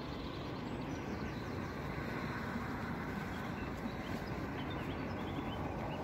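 Steady road traffic noise from cars on the road, an even wash of sound with no single loud event.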